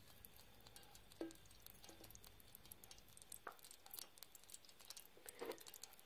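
Near silence: room tone with faint scattered ticks and a few soft taps.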